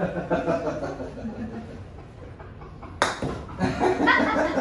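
A single sharp crack of an iron club striking a golf ball about three seconds in, with men chuckling and laughing before and after the shot.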